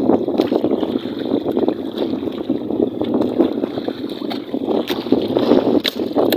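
Steady rumbling noise aboard a small fishing boat at sea, with scattered light clicks and knocks.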